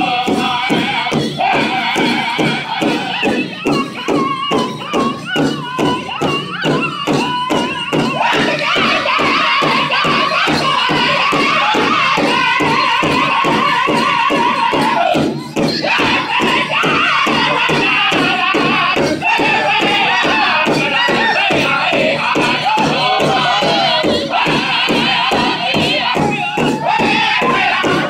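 Powwow drum group: several men beating one large shared drum in a steady fast beat while singing together in high, strained voices. The singing drops off briefly about halfway through and then comes back in over the drum.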